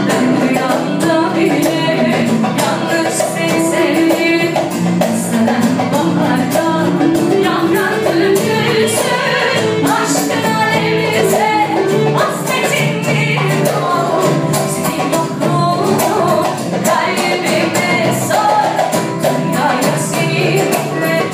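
Live music: a woman singing to acoustic guitar, with light percussion keeping a steady beat.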